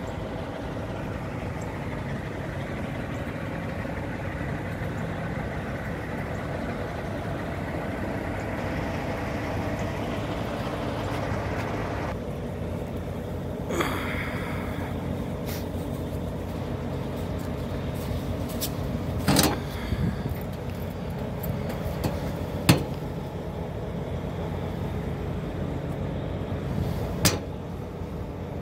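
Diesel truck engine idling steadily, with a few sharp knocks from about halfway through.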